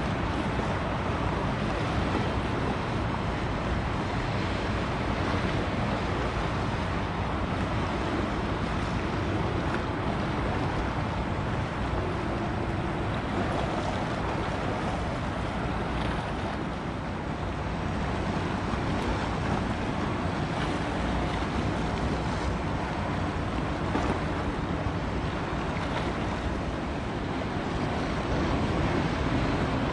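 Steady rush of wind and water as a small chemical tanker passes close by, its bow wave washing, with a faint steady hum from the ship underneath.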